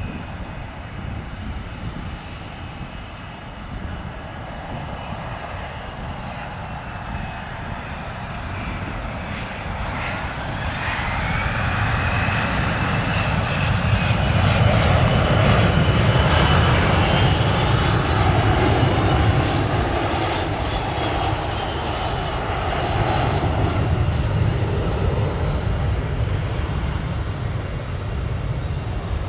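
Cessna 680 Citation Sovereign+ business jet passing on its landing, its twin turbofans whining and rumbling. The sound builds from about a third of the way in to its loudest around the middle, with whine tones gliding in pitch, then eases a little toward the end.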